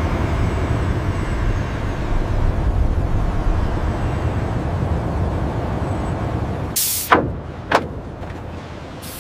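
Steady low mechanical rumble of factory machinery, broken about seven seconds in by a short sharp hiss and two quick knocks, after which it is quieter.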